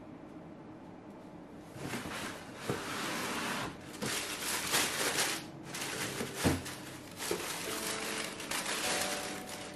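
Tissue paper rustling and crinkling in a cardboard shoebox as hands open the lid and unwrap a pair of sneakers, starting about two seconds in, in irregular bursts with a few light knocks of the box.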